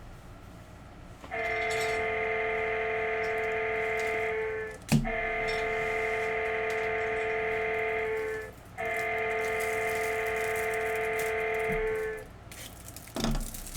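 A horn sounds three long, steady blasts of a few seconds each, a chord of several tones like a train horn, with short gaps between them. A brief sharp knock comes just before the second blast.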